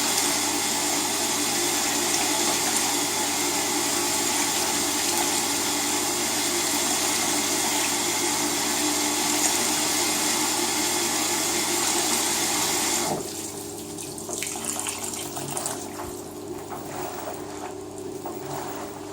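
Water running steadily through an LG WT-R852 direct-drive washing machine, with a faint hum under the rush. It cuts off suddenly about thirteen seconds in, leaving quieter trickling and dribbling in the drum.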